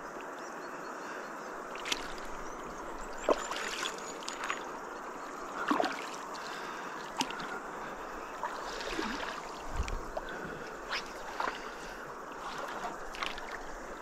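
Water lapping and trickling around a canoe hull, with scattered light knocks and small splashes and one low thump about ten seconds in.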